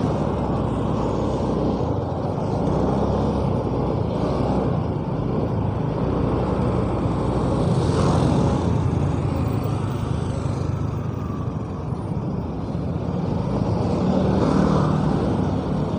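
A motorbike engine running under way with wind noise on the rider's microphone, a steady rumble and hiss, while other cars and motorbikes pass close by. The sound swells slightly about halfway through and again near the end.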